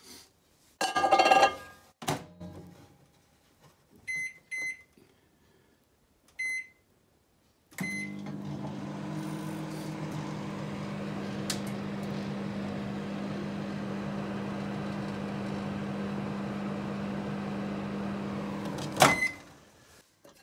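Cookworks microwave oven door shut with a clatter and click, then four keypad beeps. The oven runs with a steady low hum for about eleven seconds. The hum stops with a sharp clack of the door opening and a beep.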